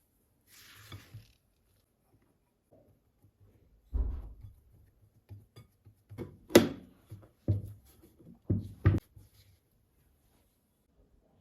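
Objects being handled: a brief soft rustle, then a dull thump about four seconds in followed by several sharp knocks and clatters, the loudest about six and a half seconds in.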